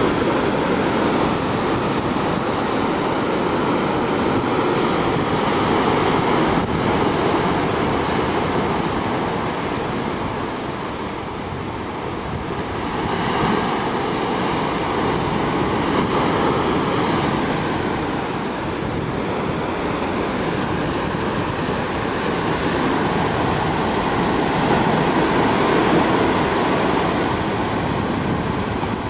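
Violent surf breaking over rocks and washing back in foam, a continuous rush of water that eases about ten seconds in and then builds again.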